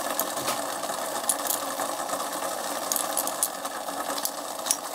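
A metal teaspoon clinking lightly now and then against glass jars and spilling salt, over a steady mechanical whirr.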